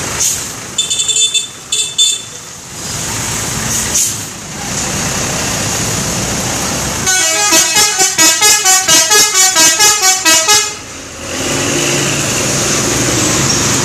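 Indonesian bus telolet horns, multi-tone horns playing melodic patterns: two short tooting bursts about a second in, then a long run of quick notes changing in pitch, about three to four a second, from about seven to eleven seconds in. Steady traffic and engine noise underneath.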